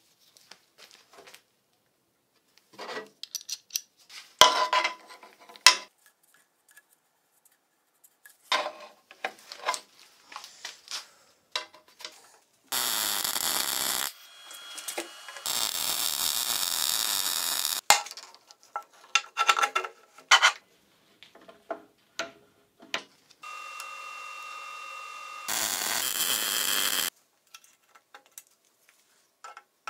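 Metal parts clinking and knocking as they are handled, broken by four bursts of a power tool running for one to two seconds each, the third quieter with a steady whine before the tool takes a load.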